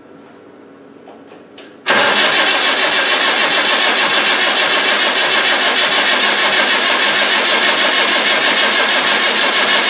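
Land Rover Defender 110 diesel engine cranking on the starter motor from cold, starting suddenly about two seconds in and turning over with a steady, even pulse. It sounds like a weak battery: 'battery doesn't sound very fit'.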